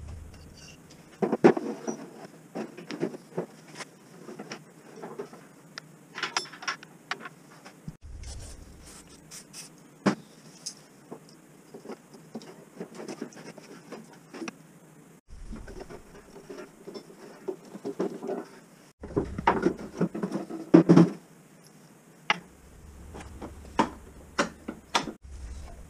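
Irregular clicks, knocks and rattles of hand tools and metal parts being handled while a lawnmower's rear wheel and drive hub are reassembled, with a cluster of louder knocks about twenty seconds in.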